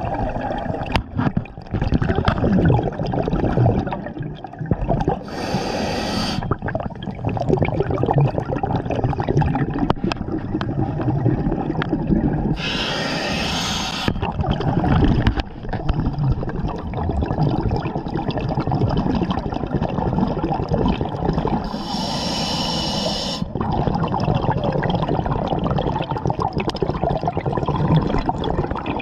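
Scuba diver breathing through a regulator underwater: three hissing inhalations, each a second or two long, with bubbling, gurgling exhalations between them.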